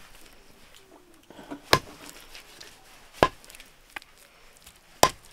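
A knife chopping raw chicken on a wooden chopping block: three sharp chops about a second and a half apart, with a faint tap in between.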